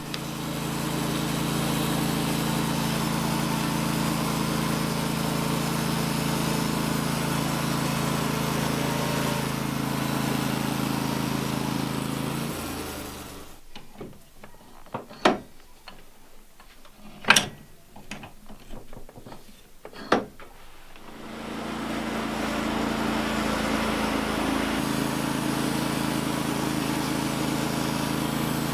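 Portable sawmill's engine running steadily, dropping in pitch and shutting off about halfway through; a few sharp knocks follow, the loudest a hard knock, before the engine starts up and runs steadily again.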